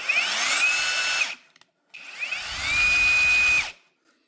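Cordless brushless impact wrench run free twice with trigger pulls. Each time the motor spins up with a rising whine, holds a steady high pitch for about a second and stops sharply. The second run is a little longer.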